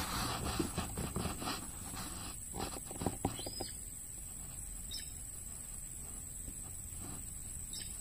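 Rustling and knocking close to the microphone for the first few seconds, then a few short, high bird chirps, three in all, over a steady faint hiss with a thin high electronic whine from the recording gear.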